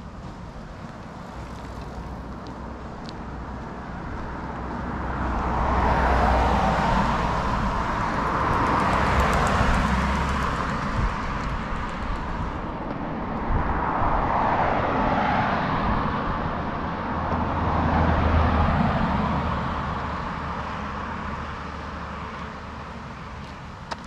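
Cars driving past one after another, the tyre and engine noise of each swelling as it nears and fading as it goes, three or four in a row.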